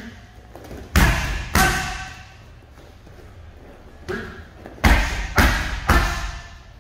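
Strikes slapping into Thai pads: two hard hits about a second apart, a pause, then a lighter hit followed by three more in quick succession, each with a brief echo in the gym.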